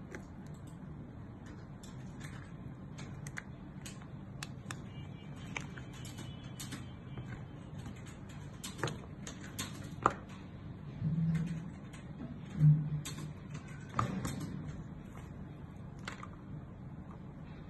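Handling noise as a small plastic kids' camera is worked out of its soft silicone case: scattered light clicks and taps, with a few louder knocks against the wooden desk around the middle, over a low steady hum.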